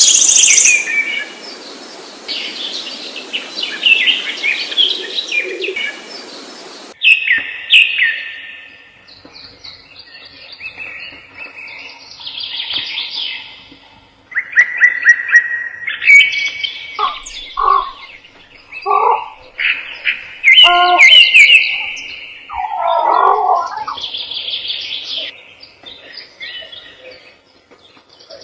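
Songbirds chirping and singing in short, repeated phrases, with a few lower notes in the middle. A steady background hiss stops abruptly about a quarter of the way in.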